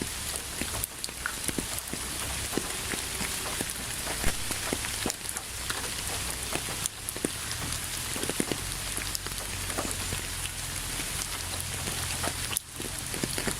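Steady rain falling on a hard surface, an even hiss dotted with the clicks of many separate drops, with a brief dip in loudness near the end.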